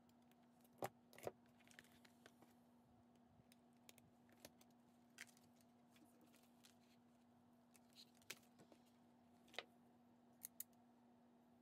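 Sharp metal clicks from a hand-held hole punch and eyelet setter squeezed on a journal cover: two loud snaps about a second in, then scattered lighter clicks and knocks as the tool is worked and handled. A faint steady low hum runs underneath.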